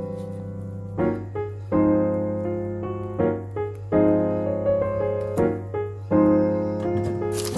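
Background instrumental music: a keyboard playing slow, sustained chords that change about once a second.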